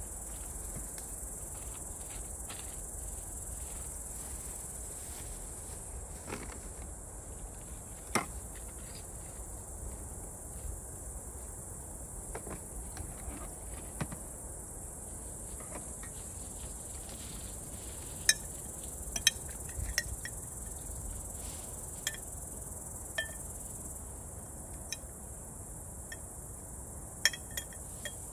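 Steady high chirring of insects in the grass, with scattered sharp clicks and knocks of utensils, a grater and a jar being handled on a camp table: one about 8 seconds in, a cluster around 18 to 20 seconds in, and another near the end.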